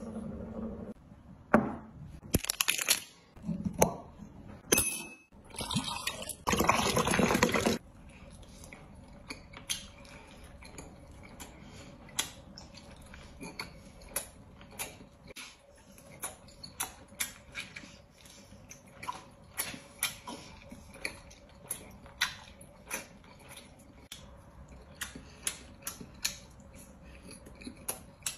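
A person eating crocodile, with wet chewing and lip-smacking. After a few seconds of louder, noisy handling at the start, it settles into short sharp mouth clicks about once a second.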